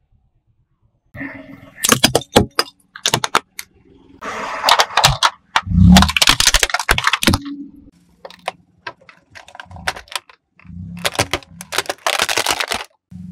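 Hard plastic toy vehicles cracking and snapping as a car tyre rolls over them: several bursts of sharp cracks, the loudest, with a heavy thud, about six seconds in.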